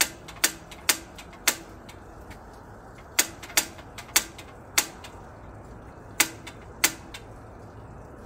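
Gas patio heater's push-button piezo igniter being pressed over and over: about ten sharp clicks in uneven groups of two to four, with short pauses between them, as he tries to light a heater that has not been used for a long time.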